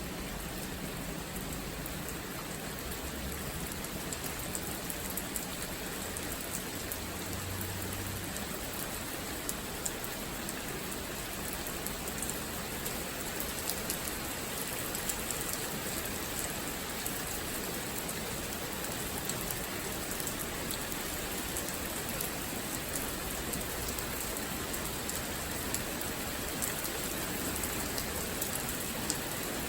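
Steady rain falling, a dense hiss with many individual drops ticking sharply on surfaces.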